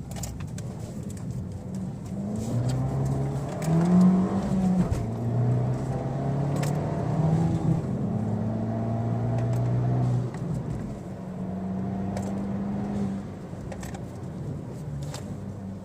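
Abarth 595 Pista's turbocharged 1.4-litre four-cylinder on its stock exhaust, accelerating hard out of a tight corner: revs climb through the gears with brief drops at each shift, then ease off to a lower, steadier run in the last few seconds.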